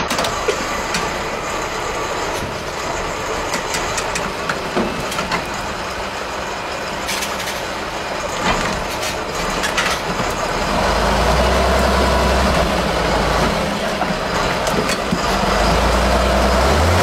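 Tatra off-road truck's diesel engine working under load as the truck crawls over rocks, with a few sharp knocks in the first half. About eleven seconds in the engine note deepens into a louder, steady low drone.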